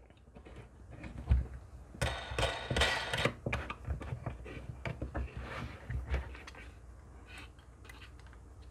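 A metal phone-repair clamp being tightened by hand: wing nuts spun on threaded steel rods, with the metal plates knocking and scraping as they press the newly glued rear glass. A sharp knock comes about a second in, and the clicking and scraping thins out after about six seconds.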